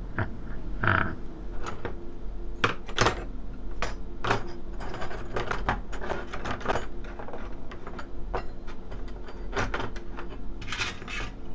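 Irregular clicks and knocks over a steady low hum, with a short hiss near the end.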